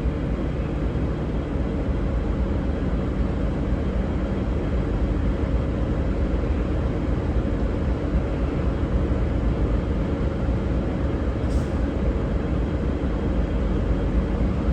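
Diesel engines of a V/Line VLocity railcar set running at the platform, a steady low rumble and hum.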